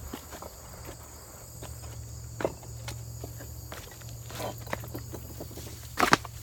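Footsteps over rocky ground and forest floor: irregular crunches and knocks, with a louder double step near the end. Insects buzz steadily behind.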